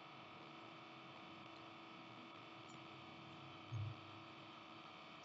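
Faint steady electrical mains hum over background hiss, with one brief low thump about three-quarters of the way through.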